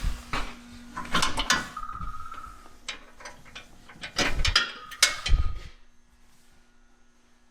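Large cardboard shipping box being handled and opened: two bursts of scraping and tearing, at the start and about four seconds in, each with a brief squeal like packing tape pulling free.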